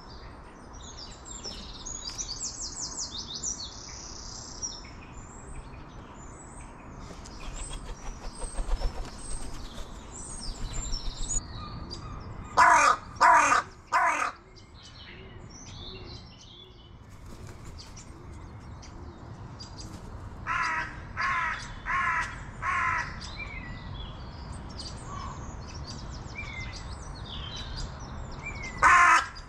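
A crow cawing: three caws about halfway through, four more in an even series about two-thirds in, and another pair at the very end. Smaller birds chirp and twitter throughout, with a high trill in the first few seconds.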